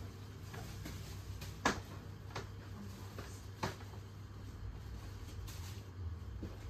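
Three short, sharp knocks, the loudest about one and a half seconds in, over a low steady hum.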